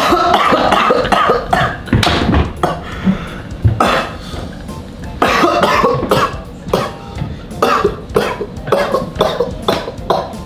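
A man coughing and clearing his throat in repeated, irregular fits after a mouthful of extremely spicy hotpot: the chili heat has caught in his throat.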